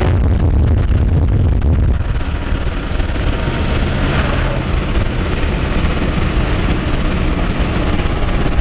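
Car under way, heard from inside the cabin: a steady low rumble of engine and road noise.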